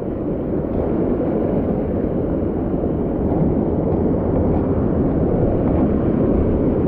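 Mountain-stream water rushing steadily through the canyon.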